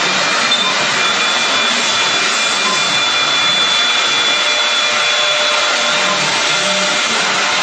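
High-speed spindle of a four-axis CNC router carving a wooden column on its rotary axis: a steady cutting noise with a faint high whine that comes and goes.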